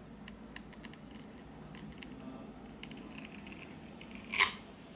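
Thin plastic opening card worked along the edge of a phone's glass back cover, cutting through the adhesive: faint scratching with scattered light clicks. One sharper click comes about four and a half seconds in.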